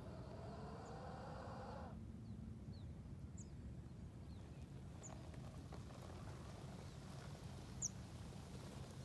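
Faint outdoor ambience: a steady low rumble, with a few short high bird chirps scattered through, the loudest near the end. In the first two seconds a rising sound with several tones runs under it and then cuts off suddenly.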